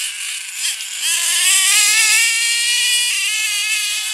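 HPI F4.6 two-stroke nitro engine in an RC monster truck at full throttle: a high, buzzing whine that climbs about a second in, holds at high revs, and shifts slightly in pitch near the end.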